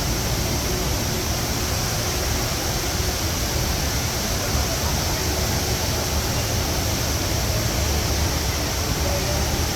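Steady, even rushing noise of water falling, typical of the Rain Vortex indoor waterfall.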